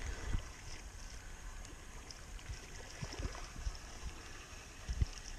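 Wind buffeting a body-worn GoPro's microphone: a steady low rumble with a few dull thumps, the strongest near the end.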